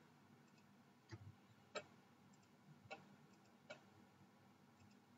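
Four faint, sharp computer mouse clicks spread over a few seconds, against near-silent room tone.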